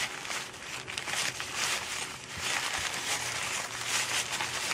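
Brown paper crinkling and rustling in irregular bursts as it is folded and wrapped around a pistol barrel by hand.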